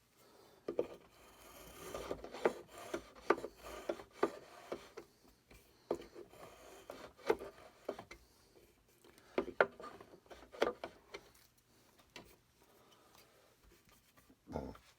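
Hand tool scraping a wooden rifle stock in short, irregular strokes as the comb is worked down by hand.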